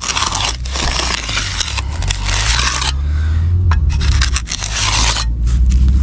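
Steel hand trowel scraping over wet concrete in several long strokes, giving a slab's edge its final trowel-off, over a steady low hum.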